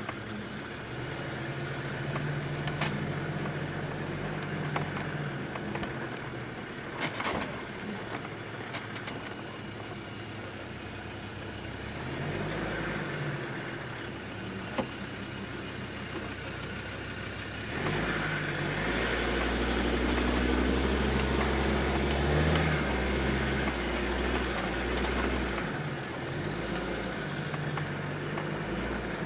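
Land Rover Discovery 2's Td5 five-cylinder turbodiesel running while the truck drives over rough dirt, heard from inside the cab, with a few short knocks and rattles. A little past halfway the engine grows louder and deeper for several seconds as it works under load.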